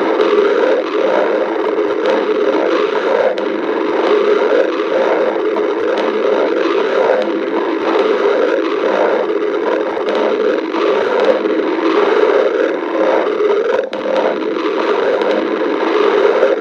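Stomach growling: a loud, continuous rumbling from the belly that flutters quickly and unevenly without a break.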